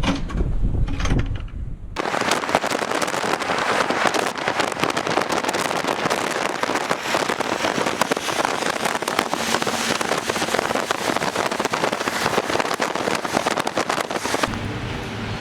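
Snowstorm ambience: a dense, crackling hiss of wind and falling snow that starts about two seconds in, after a short low rumble.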